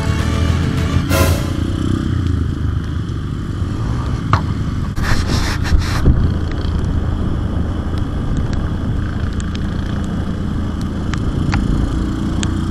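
Small dirt bike's engine running steadily as it rides over a rough dirt trail, with short clattering knocks from the bike about a second in and again around five to six seconds in.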